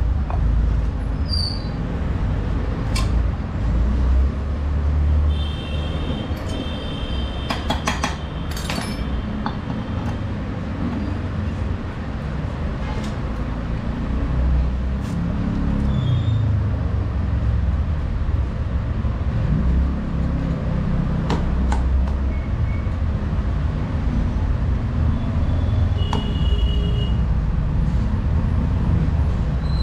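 Steady low rumble with scattered sharp clicks and a few brief high-pitched squeaks or tones.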